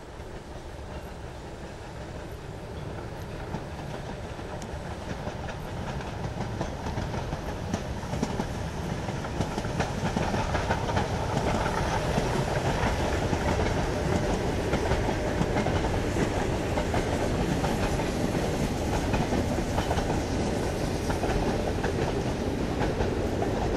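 Harz metre-gauge steam tank locomotive hauling a passenger train, growing louder over the first ten seconds or so as it approaches and then running past close by. Its coaches roll past near the end.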